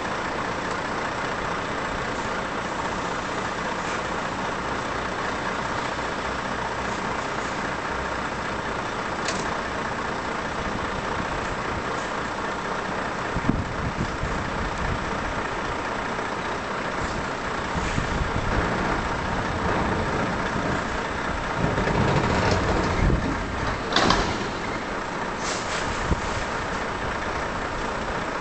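Volvo FH truck's diesel engine idling steadily during coupling to a semi-trailer. A sharp knock comes about halfway through, then the engine swells louder twice in the last third, with a few short sharp bursts near the end.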